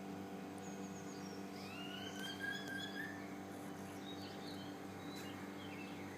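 A bird imitating a police siren: one drawn-out whistle that rises and then holds for about a second and a half, about two seconds in, with short higher chirps around it. A steady low hum runs underneath.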